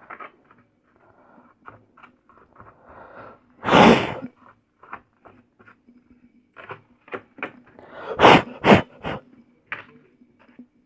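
Puffs of breath blown into the open induction cooker to clear dust: one long puff about four seconds in and two short ones close together near eight seconds, amid light clicking and scraping of the parts being handled.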